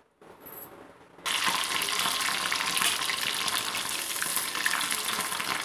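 Water-soaked paneer cubes frying in hot sunflower oil in a kadai. The oil bursts into sizzling about a second in and keeps up a steady, dense crackle.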